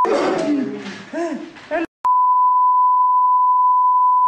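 About two seconds of a man's speech, then a click and a steady single-pitch censor beep that starts about two seconds in, blanking out his words.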